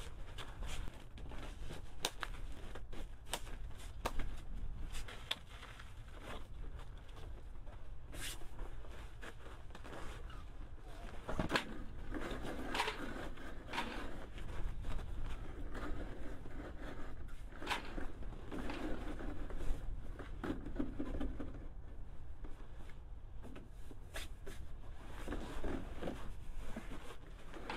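Rustling, crinkling and clicking handling noises in a small enclosed space, over a steady low rumble.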